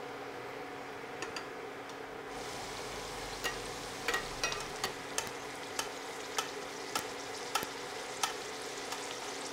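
Puri deep-frying in hot oil, sizzling steadily, while a ladle splashes oil over it to make it puff up. Light clicks come about every half second from roughly three seconds in.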